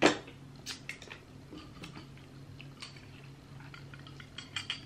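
Crab legs being cracked and eaten: scattered sharp clicks and snaps of shell, the loudest right at the start and a quick cluster near the end.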